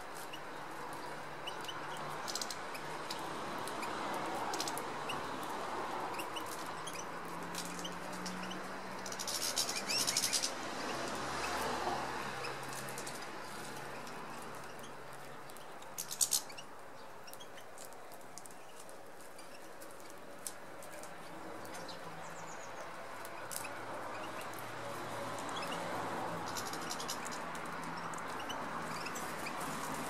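European goldfinches twittering with short high chirps over a steady background hiss, with a brief dense flurry about ten seconds in and a sharp click or two a little past the middle.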